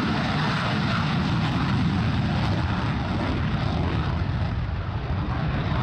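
Aircraft engine sound effect: a loud, steady rushing noise with a deep rumble underneath that starts and cuts off abruptly.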